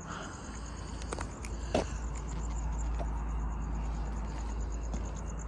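Outdoor night ambience: crickets chirping in a steady, rapid high pulse over a low rumble. A few scattered clicks or steps stand out, the loudest a little under two seconds in.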